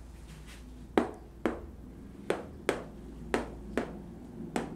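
A marker tapped against a whiteboard: seven short, sharp taps at an uneven pace, the marker moving along a line of writing.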